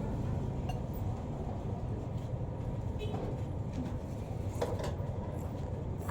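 Food stall ambience: a steady low rumble with a few scattered clinks of bowls and utensils.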